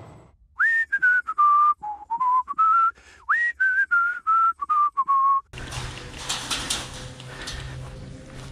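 A person whistling a short melody of about a dozen notes, two upward swoops followed by falling steps, for about five seconds; then a steady rushing noise takes over.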